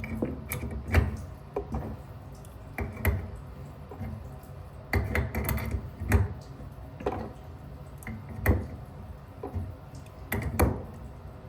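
Irregular knocks and clicks of tools and fittings being handled while the water supply line to a toilet is disconnected.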